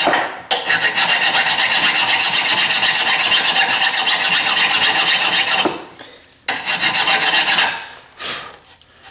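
Fine metal file rasping back and forth over the end of a broken bolt in an axle, lightly filing down the raised metal around a center-punch mark. It stops briefly about six seconds in, resumes, then trails off near the end.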